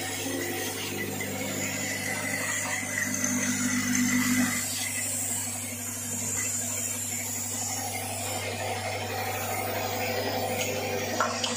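Vibratory bowl feeder with linear track and hopper running: a steady electromagnetic buzzing hum with small metal parts rattling and rubbing as they are fed along. Part of the low hum drops away about four and a half seconds in.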